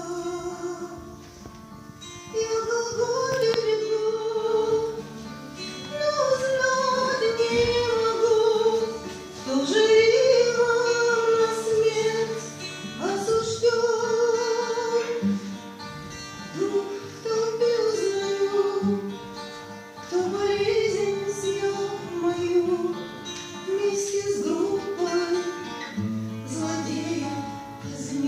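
A woman singing with acoustic guitar accompaniment, in phrases of a few seconds each.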